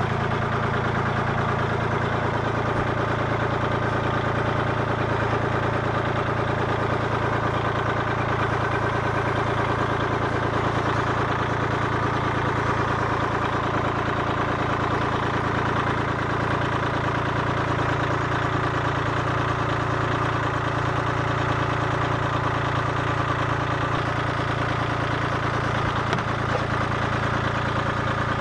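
Tractor engine idling steadily, with an even low hum, while its front-loader forks lower a round plastic septic tank into the hole.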